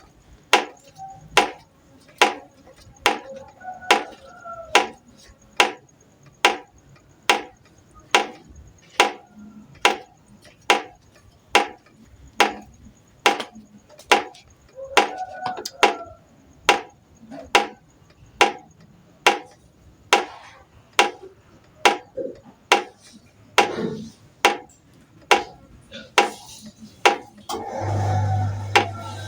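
Knife chopping on a cutting board in a steady rhythm, just under two strokes a second. Near the end the chopping stops and a steady hiss with a low hum begins.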